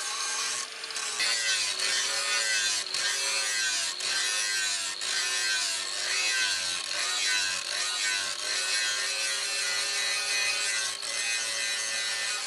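Angle grinder with an abrasive disc grinding a forged steel machete blade: a steady hiss of the disc on the steel, with the motor's whine wavering up and down as the disc bites and eases off the blade.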